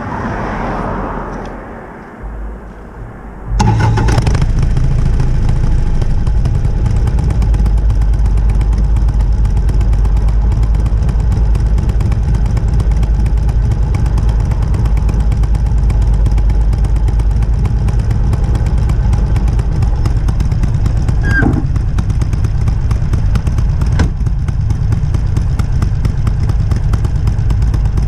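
Harley-Davidson Sportster 883's air-cooled V-twin on its stock exhaust starting up about three and a half seconds in, then running steadily.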